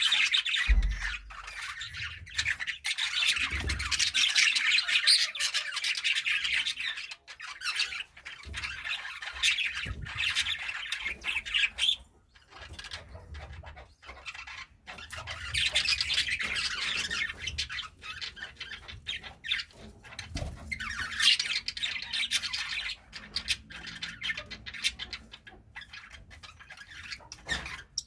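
Budgerigars chattering and chirping in a flock, a dense warble in stretches of several seconds with short quieter gaps between them.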